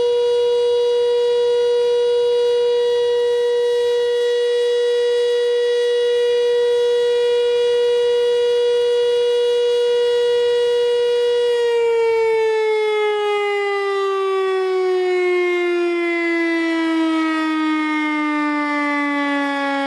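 Motor-driven alarm siren sounding one steady, loud tone, then winding down with a slow fall in pitch from about twelve seconds in.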